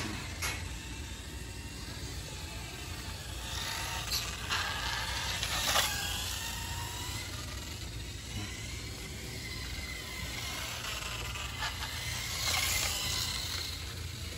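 Electric drive motor of a Kyosho Hanging On Racer 1/8 RC motorcycle running on a test run, a faint whine rising and falling in pitch as it speeds up and slows. A few sharp clicks are heard, the loudest about six seconds in.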